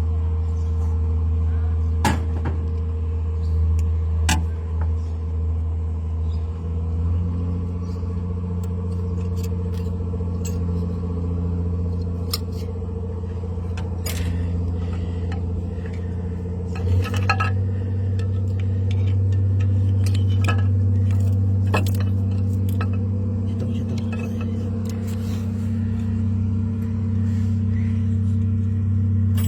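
A machine, like an engine, running with a steady low drone whose pitch shifts slightly a little past halfway, with scattered sharp metallic clinks.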